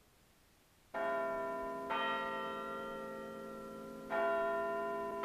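Church bells ringing: three strokes, the first about a second in, with at least two different bells, each ringing on and fading slowly as the next is struck.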